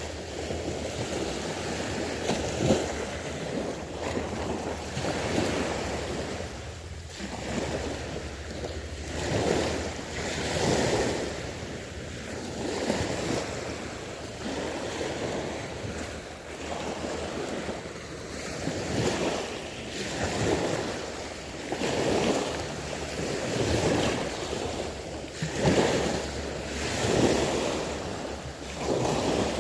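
Small waves washing in, swelling and ebbing every one to two seconds, with wind buffeting the microphone.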